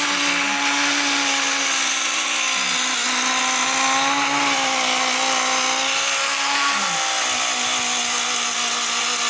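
Taiff hair dryer running: a loud, steady motor hum with rushing air, its pitch wavering slightly. The owner traces the strange noise to a worn motor bearing (mancal).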